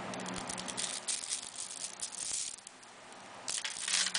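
Hundreds of small neodymium magnet spheres (Zen Magnets) clicking and rattling against each other as a caged icosidodecahedron built from them is crushed in the hands. A dense run of fine clicks fills the first two and a half seconds, then a second flurry comes near the end.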